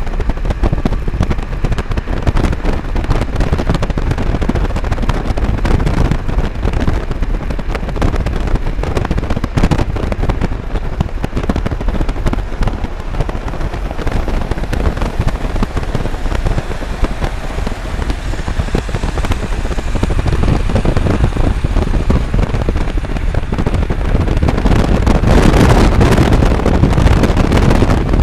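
Road and wind noise in a moving car, with dense crackling from wind buffeting the microphone. It grows louder and hissier about four seconds before the end.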